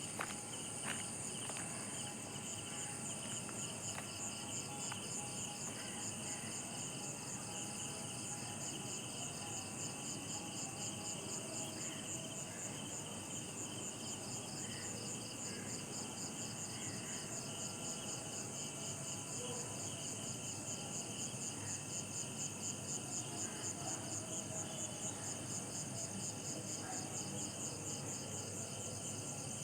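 Night insects, crickets among them, trilling steadily in a continuous high, evenly pulsing chorus, with faint scattered calls underneath.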